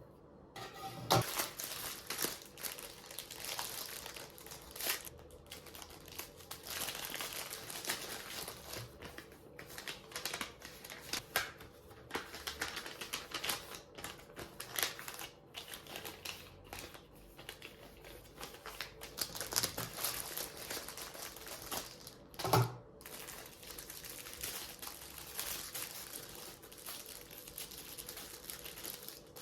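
Packaging crinkling and rustling as a delivered parcel is unwrapped by hand, with many quick crackles and clicks and a couple of knocks against a hard surface.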